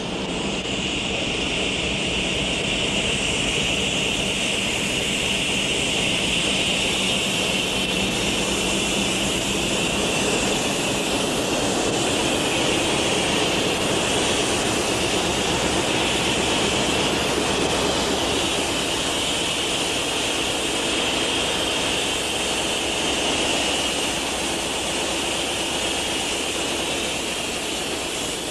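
A standing locomotive running steadily: a constant engine noise with a high whine held over it.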